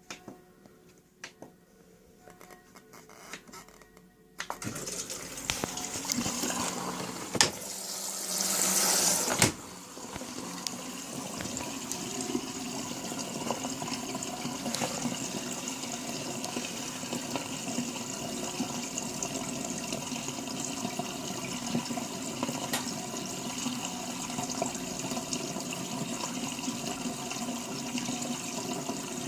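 Miele W941 washing machine taking in water at the start of a wash programme. After a few faint clicks, water starts rushing in about four seconds in, is loudest for a moment around eight to nine seconds, then settles into steady filling.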